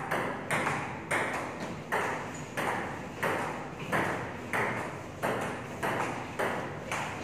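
Table tennis rally: the ball clicking off the bats and bouncing on the table in a steady, unbroken back-and-forth, about three clicks a second.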